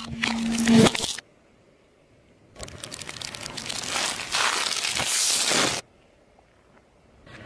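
Car tyre crushing objects on asphalt, played in reverse: a short crunch of hard plastic in the opening second, then a plastic bag of marshmallows crinkling and crackling under the tyre, swelling over about three seconds and cutting off suddenly.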